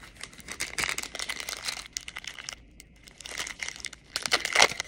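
Foil trading-card pack wrapper being torn open and crinkled by hand, in two bouts of crackling with a short pause between them, the louder bout near the end.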